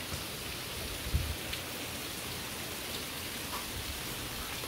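Steady rain falling, an even hiss of drops. About a second in there is one brief low thump.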